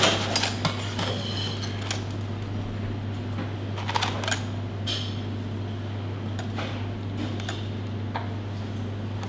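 Light metallic clicks and small knocks from a stainless steel piston funnel as its lever opens and shuts, dispensing liquid into a silicone mold, over a steady low hum.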